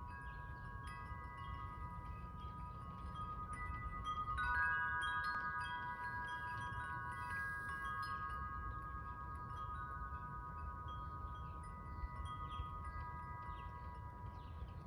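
Wind chimes ringing in a breeze: several long, overlapping tones that grow busiest and loudest about four seconds in, over a low wind rumble.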